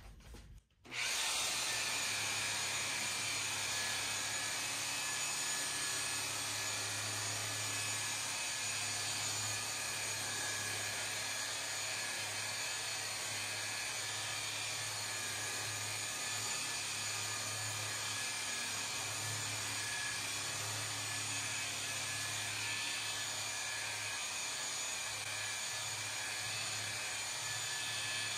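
Corded rotary polisher with a wool buffing pad starts about a second in and then runs steadily at constant speed, buffing compound into clear-coated sheet metal.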